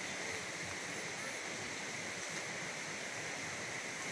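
Floodwater rushing in a steady, unbroken noise.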